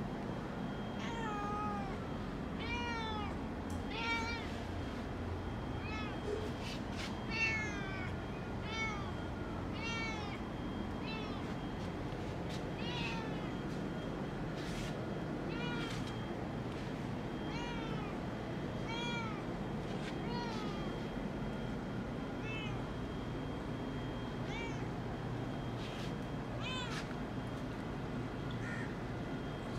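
Domestic tabby cat meowing over and over, short meows every second or two, each rising then falling in pitch, over a steady low background rumble.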